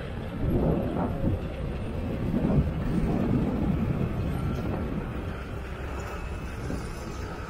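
Crawler loader driving past at close range: its diesel engine running under the clatter of its steel tracks. Louder from about half a second in, easing off after about five seconds as it moves away.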